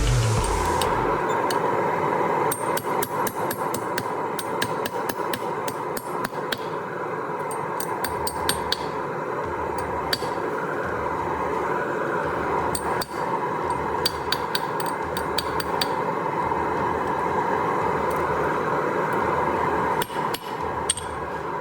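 Steel die holders being deburred, with their corners rounded: a steady grinding noise with many sharp metallic clicks and taps scattered throughout.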